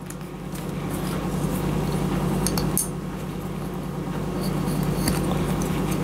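Coaxial-cable F-connectors being screwed onto a metal TV splitter by hand: small metallic clicks and scraping, over a steady low hum.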